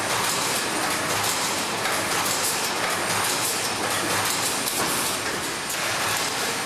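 Eurobend PLT SPACER K4K1 B spacer welding machine running: a dense, steady mechanical clatter with hiss, without pauses.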